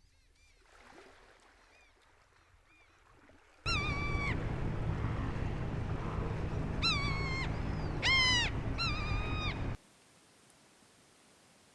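Amazon rainforest wildlife calls: faint arched calls at first, then from about four seconds a much louder stretch of repeated ringing bird calls over a dense hiss and low hum, which cuts off abruptly near ten seconds.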